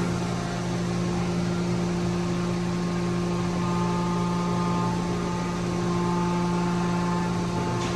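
CNC milling machine running a finishing pass on bronze shift-fork pads with the coolant on: a steady machine hum with several steady whining tones, and a higher pair of tones joins about halfway through.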